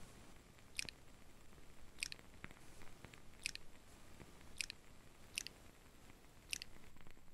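Nail polish brush stroking across toenails: six short, crisp swipes roughly a second apart, faint.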